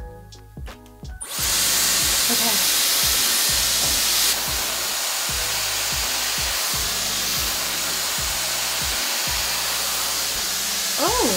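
Dyson Airwrap multi-styler switching on about a second in and blowing a steady rush of air through its flyaway attachment. The rush eases slightly about four seconds in.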